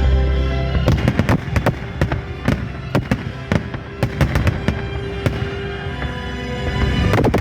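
Fireworks salute going off: a rapid series of sharp bangs and crackles from about a second in, with a dense cluster near the end. Music plays steadily underneath.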